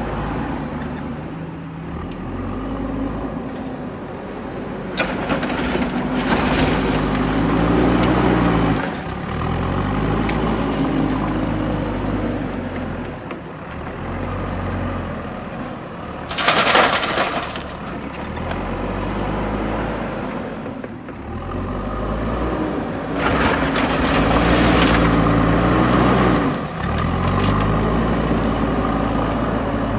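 Diesel engine of a JCB backhoe loader revving up and down again and again as it works under load. A short, loud burst of rough noise comes through about 17 seconds in.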